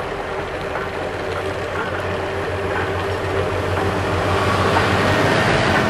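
Foster steam traction engine towing a living van, passing along a road: a steady mechanical rumble of the engine and its wheels on tarmac, growing louder near the end.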